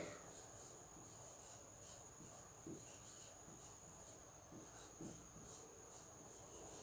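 Near silence: a marker writing on a whiteboard in a few faint short strokes, over a steady high, thin tone.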